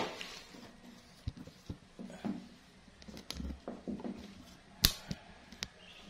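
Cardboard and a plastic crate being handled: a run of scattered light knocks and clicks, the loudest about five seconds in.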